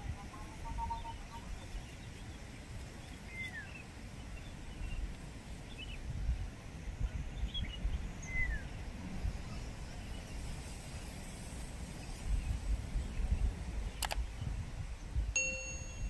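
Gusty wind buffeting the microphone as an uneven low rumble, with a few faint high chirps. Near the end comes a sharp click, then a single short ding.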